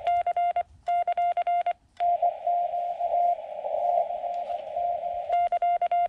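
Morse code (CW) from a portable ham radio: a steady tone keyed on and off in dits and dahs, sent with a homebrew force-sensing pressure paddle. Between the sent groups, the receiver's hiss carries a fainter keyed tone for a few seconds in the middle.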